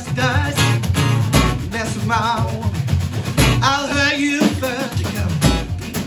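Live acoustic duo: a man sings, holding a wavering note near the middle, over a strummed acoustic guitar, backed by a drummer on snare drum and bass drum.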